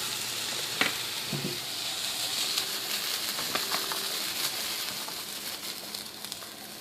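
Food sizzling in a hot frying pan, a steady hiss with a few light clicks of a utensil against the pan, easing slightly near the end.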